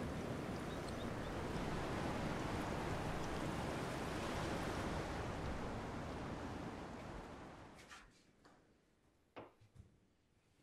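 Ocean surf washing onto a beach with wind, fading out after about seven seconds. Then comes a low, quiet stretch with a few faint clicks, the loudest about nine and a half seconds in.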